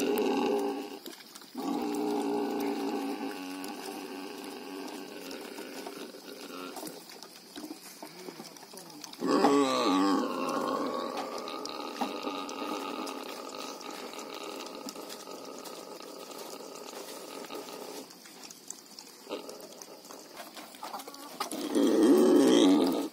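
Black pigs calling with long, drawn-out squeals, hungry for their feed; the calls are loudest about nine seconds in and again near the end.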